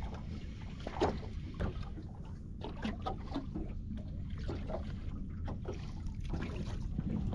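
Water lapping and slapping against a small boat's hull over a steady low rumble, with scattered small knocks.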